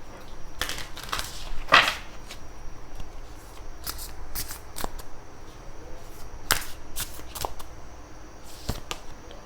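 Oracle cards being shuffled and handled: irregular light slaps, flicks and short swishes of card stock.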